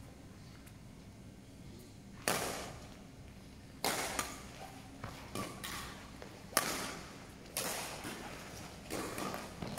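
Badminton racket strings striking a shuttlecock in a rally: sharp cracks starting about two seconds in, coming roughly every second or so, each ringing on in the echo of a large sports hall.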